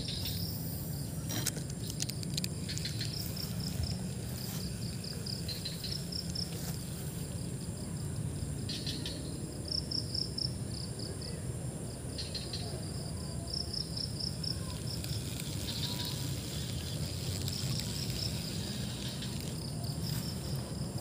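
Insects chirping in short, rapid pulsed trills, repeating again and again over a steady low background, with a few faint clicks.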